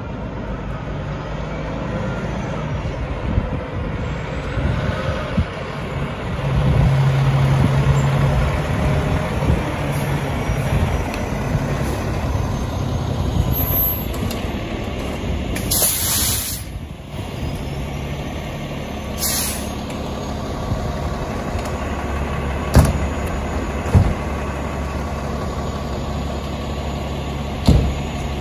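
Pierce tiller aerial ladder fire truck's diesel engine running as the truck pulls in and parks. About halfway through, the air brakes give two short hisses. Three sharp knocks come near the end as the driver gets out of the cab.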